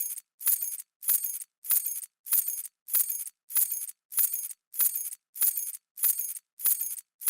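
A bunch of metal keys dropping and jangling, over and over: a short bright clatter about every 0.6 seconds, with silence between the drops.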